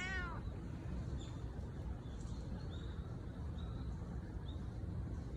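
A short cat meow right at the start, then a few faint, brief high bird chirps over a steady low outdoor rumble.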